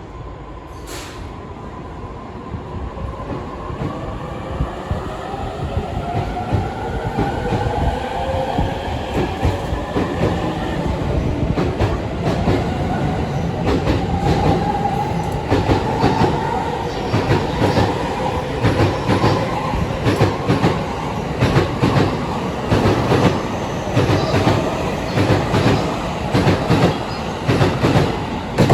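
E231 series electric train accelerating away from a station stop: its traction motors give a whine that rises steadily in pitch over the first twenty seconds or so. Wheel-on-rail clatter over the rail joints grows louder and quicker as the train gathers speed.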